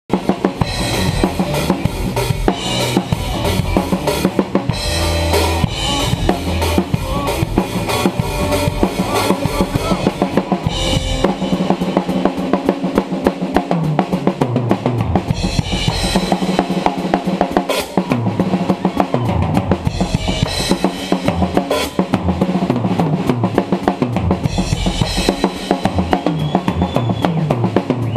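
Drum kit solo played live: fast, dense strokes on snare, bass drum and toms, with stretches of crash and ride cymbal on Zildjian cymbals. From about halfway on, repeated runs down the toms fall from high to low pitch.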